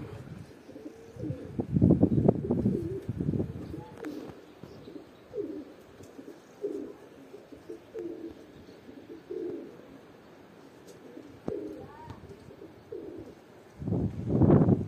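Domestic pigeons cooing, a run of short low coos through the middle. Loud low rumbling gusts of wind buffet the microphone about a second in and again near the end.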